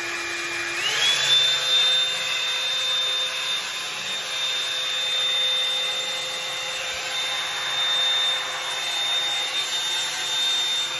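Bed Head Blow Out Freak hot-air volume brush running with a steady whine and rush of air. About a second in it is switched from low to high: the whine glides up in pitch and then holds steady at the faster speed.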